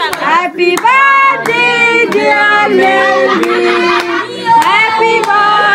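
A group of children and women singing together in held, overlapping notes, with a few sharp claps here and there.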